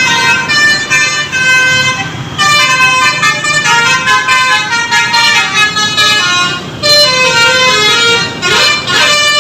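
A bus's telolet horn, a Basuri-type set of electric air horns, playing a loud melody of quickly changing notes, with short breaks about two seconds in and again near seven seconds.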